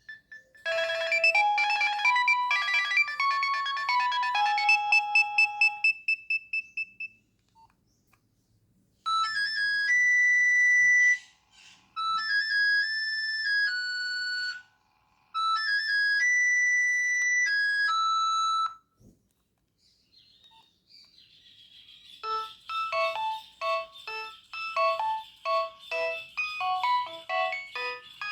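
Nokia 6560 mobile phone ringtones played one after another. First comes a short beeping melody that dies away in echoing repeats. After a pause, a phrase of held electronic beeps is played three times, and then a rising sweep leads into a fast, rhythmic tune of short notes.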